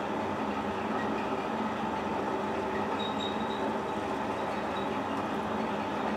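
Metal lathe running: the spinning chuck and headstock gear train give a steady mechanical drone made of several steady tones. A faint high tone sounds briefly about three seconds in.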